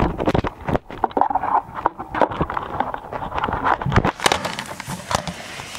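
Irregular clicks, knocks and rustling of objects being handled close to the microphone, with a louder knock about four seconds in.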